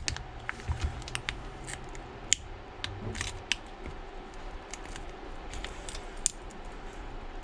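Small irregular clicks and ticks of a thin pry tool working under an iPad mini 4's glued glass screen, prying it loose from its adhesive, with a few sharper snaps.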